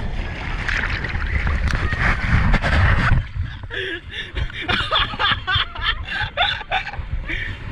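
Wind and water rushing past during a banana boat ride, then, about three seconds in, riders laughing and calling out over splashing water.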